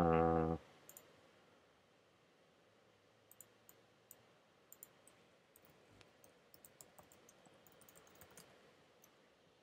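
Computer keyboard keys clicking faintly in quick, irregular runs from about three seconds in until near the end, as a username and password are typed.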